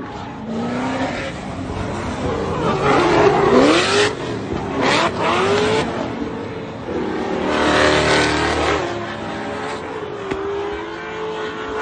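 Drift cars' engines revving up and down as they slide through a corner, with bursts of tyre screech; the loudest stretches come around four and eight seconds in.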